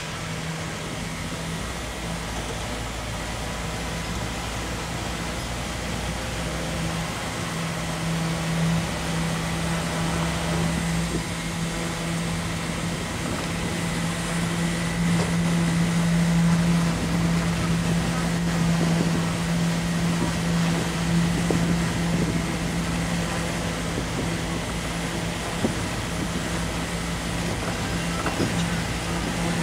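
Motor vehicle running steadily under way: a constant engine hum with road noise that swells a little midway.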